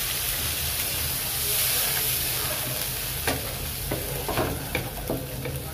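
Onions and ginger-garlic paste frying in oil in a pan, sizzling steadily after a splash of water, while a spatula stirs the masala, knocking and scraping against the pan several times in the second half.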